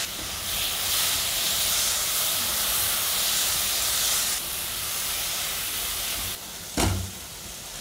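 Freshly added chopped tomatoes sizzling in hot oil with fried onions and spices in a kadai as they are stirred with a silicone spatula. The sizzle is loudest in the first few seconds and eases off after about four seconds, with a single knock near the end.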